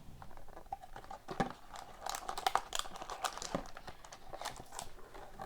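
Hockey card packaging crinkling and crackling in the hands as a box of cards is opened and the pack taken out, with a quick run of sharp crackles from about a second in.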